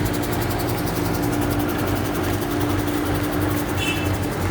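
Engine and blower of a pothole-patching machine running steadily with a constant whine, as it blows stone crumb into the potholes under pressure. The whine stops shortly before the end.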